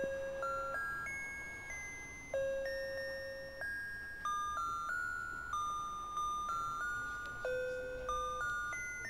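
Electronic melody chip in a plush snoring-bear toy playing its tune: a simple melody of single chime-like notes, each struck and fading, about one or two notes a second.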